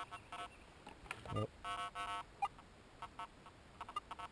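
Metal detector giving short, broken-up beeps as its coil is passed over a dug hole, a signal from more pieces of a rusted steel can. A couple of soft handling knocks come in between.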